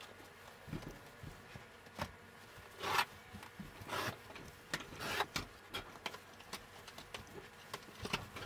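Old carpet being rolled up and handled by hand: irregular rustling swishes and scrapes with a few light knocks, the loudest swishes about three and four seconds in.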